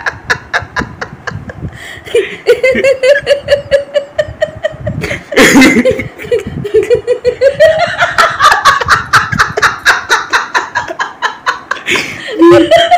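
A woman laughing hard and without a break, in rapid pulsing bursts, with louder outbursts about five and a half seconds in and again near the end.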